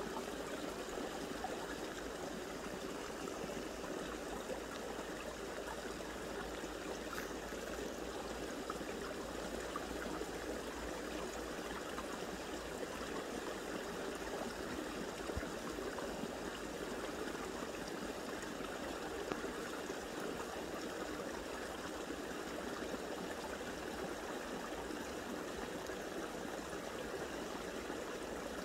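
Steady rushing and trickling of a small stream running nearby, unbroken throughout.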